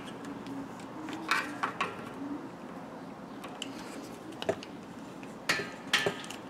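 Irregular light metallic clicks and taps as a screwdriver and wires are worked into an air compressor's pressure switch box, a cluster near the start and a few more toward the end.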